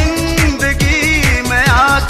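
Loud dance music: a heavy drum beat of about four strokes a second under a wavering melody line.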